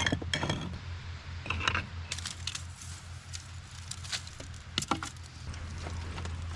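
Firewood and a cooking pot being handled: scattered light clicks, knocks and clinks at irregular moments, over a steady low hum.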